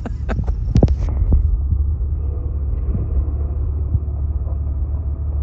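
Off-road truck's engine running under load as it climbs a steep dirt hill, heard as a steady low rumble. There are a few sharp clicks in the first second.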